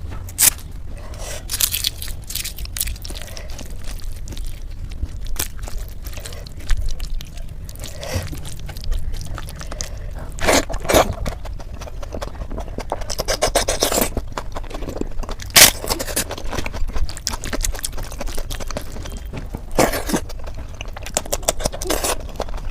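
Close-miked eating sounds: chewing and biting into fried eggplant slices, with irregular sharp clicks, crunches and scrapes, over a steady low hum.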